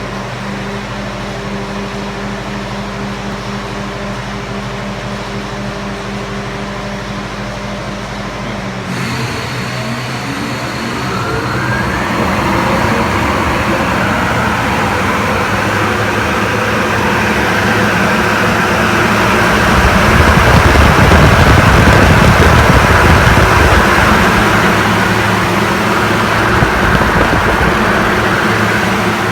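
Industrial fan with a 20 hp, 2900 rpm electric motor. A steady low hum changes about nine seconds in, then a whine rises in pitch as the fan spins up and the rush of air grows louder, loudest past the two-thirds mark.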